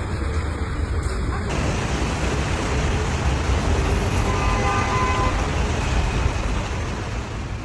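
Hail and heavy rain pelting down in a dense, steady hiss, with a faint tone sounding briefly near the middle.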